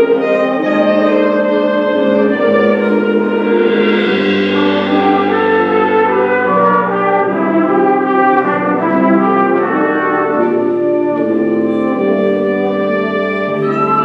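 School concert band of woodwinds, brass and percussion playing sustained chords, with the brass prominent.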